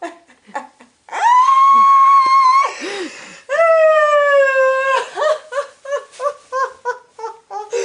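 High-pitched vocal squeals: one long held squeal, then a lower one that sinks slightly, followed by a quick run of short yips, about three a second.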